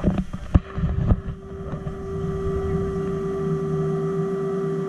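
A steady mechanical hum with a held tone, with a few sharp knocks or clicks in the first second or so.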